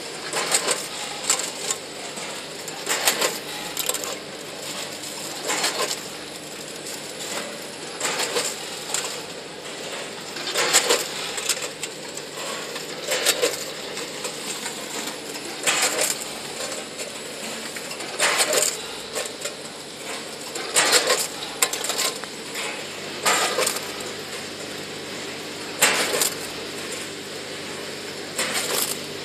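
Multihead weighing and packing machine cycling, with batches of plastic parts clattering against its stainless-steel hoppers and chute. The clatters come about every two and a half seconds, each batch released for one six-piece bag, over a steady machine hum.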